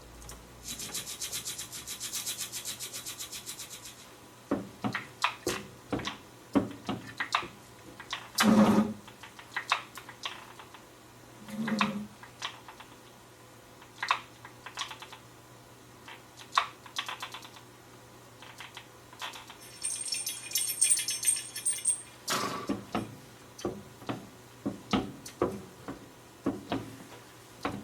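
Hand-made foley sound effects: a fast, high rattle for about three seconds at the start, then a string of separate clicks and knocks with two heavier thuds, another rattle about three quarters of the way through, and quick knocks near the end.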